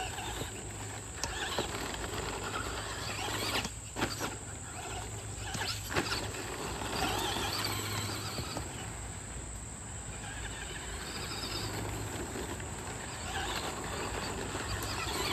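Electric Traxxas Slash 2WD RC truck driving around a dirt track, its motor whine rising and falling and its tyres scuffing the dirt, with a few sharp knocks around four and six seconds in. A steady insect chirring runs underneath.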